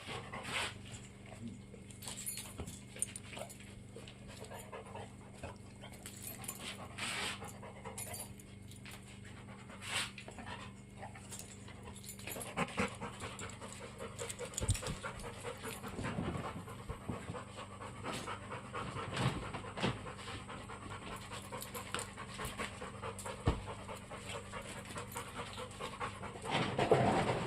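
A dog panting, with scattered small clicks and knocks around it.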